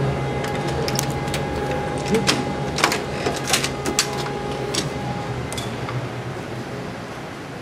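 A run of sharp clicks and knocks from a wood-framed glass door's handle and latch as it is opened and passed through, over a steady mechanical hum that fades near the end.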